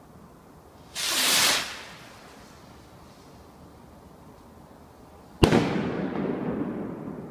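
Firework rockets: a half-second rushing hiss about a second in, then a single sharp, loud bang about five seconds in that echoes and dies away over the next two seconds.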